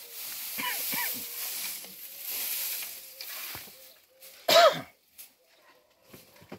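Fresh-cut alfalfa rustling as it is pulled apart and spread by hand along a wooden feed trough. About four and a half seconds in there is one short, loud vocal sound that drops in pitch, from the man or a goat.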